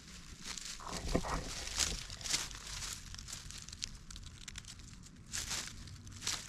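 Dry rustling and crinkling in irregular short bursts, loudest from about a second to two and a half seconds in and again near the end.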